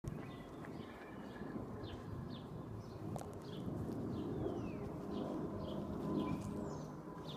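Birds chirping: many short, repeated calls with a few falling whistles, over a low steady background noise.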